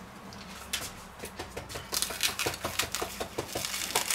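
Scissors snipping through plastic cling film stretched over a plate, with the film crinkling: a quick run of short clicks and rustles, several a second, starting about a second in.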